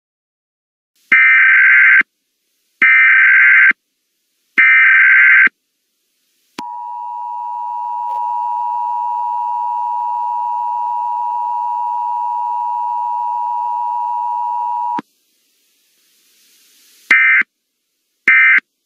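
Emergency Alert System signals. Three SAME data-header bursts of about a second each give a harsh digital screech. Then the two-tone EAS attention signal holds steady for about eight seconds and cuts off sharply. After a brief rising hiss, short end-of-message data bursts chirp near the end.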